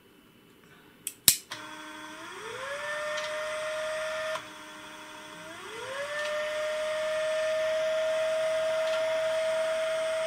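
Two switch clicks about a second in. Then the SP-668 filter's stepper motor and gear train whine as they drive the variable capacitors, in two runs: each starts low, glides up in pitch and holds a steady high whine. The first run stops about four seconds in; the second runs on to the end. The first run fits the capacitor shaft being driven to its optical reference position, and the second the shaft being stepped to the selected filter frequency.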